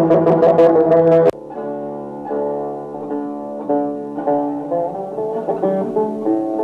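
Plucked-string music with sharp, loud plucks cuts off abruptly about a second in. Quieter, slower plucked music follows, with ringing sustained notes, of the kind played on the Turkish tanbur.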